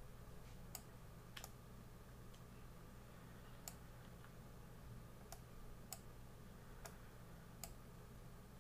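Faint clicking of computer controls: about seven sharp clicks at irregular intervals, over a low steady hum.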